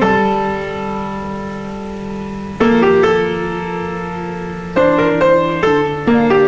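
Slow background piano music: held chords that ring and fade, with new chords struck a few seconds in and then several in quicker succession near the end.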